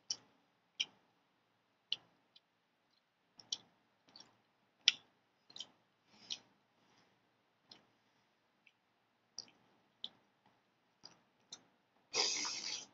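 Irregular short wet clicks and smacks of a mouth chewing noodles, one sharper click about five seconds in. About twelve seconds in comes a long loud slurp as a mouthful of noodles is sucked up.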